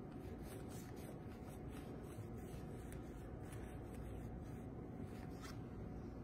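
Paintbrush stroking acrylic paint onto a canvas: faint, irregular scratchy brushing over a low steady room hum.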